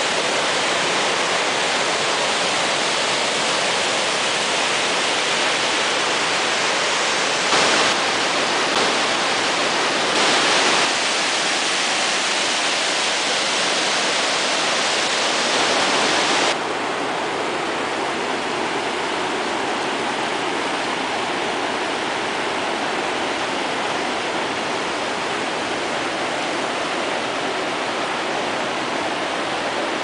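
Victoria Falls: a dense, steady rush of falling water, with two brief louder surges in the first half. About halfway through the sound changes abruptly to a slightly quieter, duller rush of the river running over rocks above the falls.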